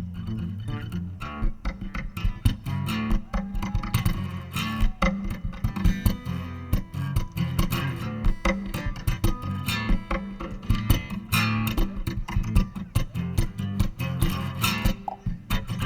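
Live band playing an instrumental passage: quick picked guitar notes over a steady bass line.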